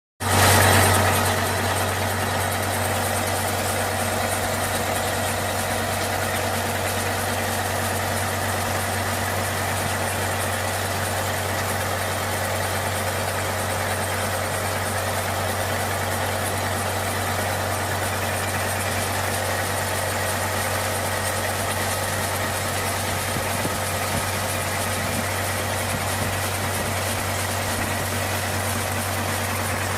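Caterpillar diesel engine idling steadily, a little louder for the first second or so, then running evenly with a deep hum.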